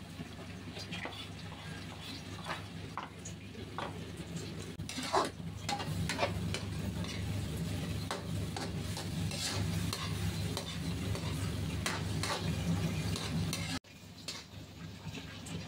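Spatula stirring squid adobo in a wok, with scattered scrapes and clicks against the pan over a steady low hum; the sound breaks off briefly near the end.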